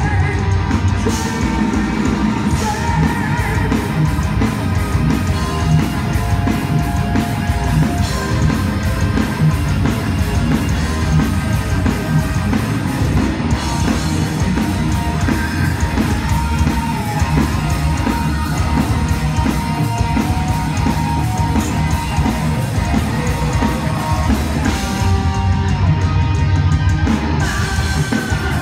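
A live thrash metal band playing loudly, heard from the crowd: distorted electric guitars, bass and drums, with the lead singer's vocals over them.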